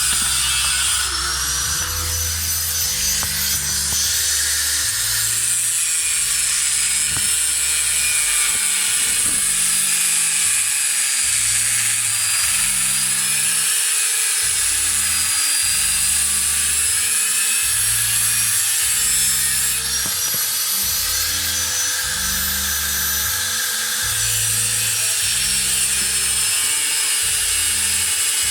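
A power tool running steadily, a continuous hiss with a whine that wavers slightly in pitch as under changing load. A bass-heavy music track plays underneath, its low notes changing about once a second.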